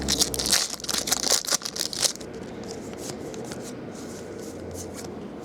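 Baseball trading cards being handled and shuffled by hand: a quick run of rustles and snaps lasting about two seconds, then only a faint steady hum.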